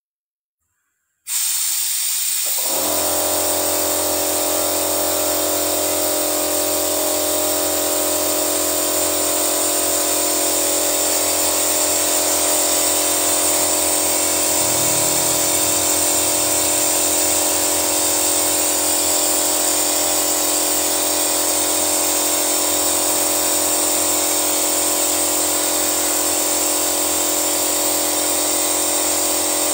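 Toyota Yaris engine running at a steady idle during an engine decarbonising treatment, with a loud steady hiss of compressed air through the pressurized cleaning-fluid canister. The sound cuts in suddenly about a second in and holds unchanged.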